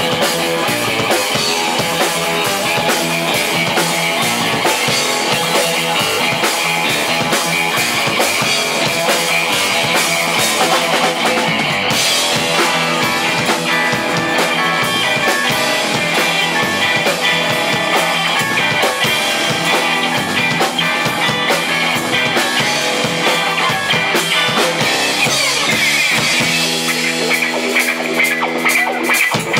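Live band playing an instrumental groove on keyboard, electric guitar, bass guitar and drum kit. The cymbals come in harder about twelve seconds in, and held chords ring out near the end.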